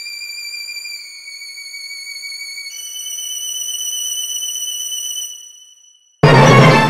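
Background music: sustained high, thin synthesizer-like notes that step to new pitches twice, fade out, then after a brief gap a loud drum hit near the end.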